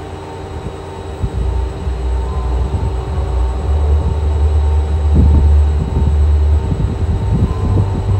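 A deep, steady low rumble that grows louder about a second and a half in, with a faint steady hum above it.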